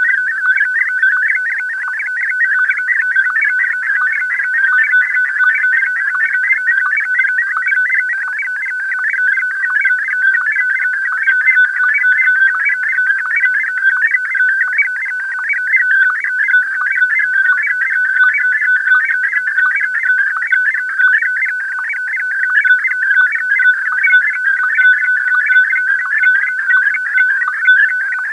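Slow-scan television (SSTV) data signal received over radio: a continuous high warbling tone stream chopped by rapid, regular ticks, with no break.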